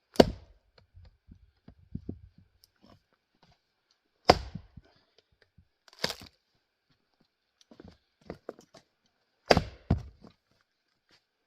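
Jersey-pattern felling axe splitting grand fir rounds: sharp chopping strikes a few seconds apart, the last two close together, with smaller knocks of wood between.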